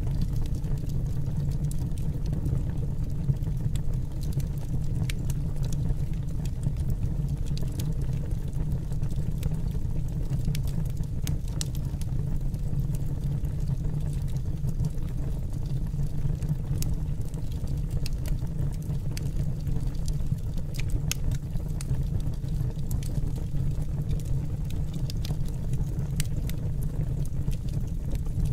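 Pellet burner flame burning with a steady low rumble and scattered faint crackles.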